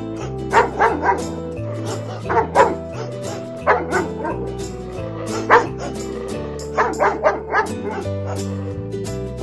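A dog barking in short groups of one to four barks, over steady background music.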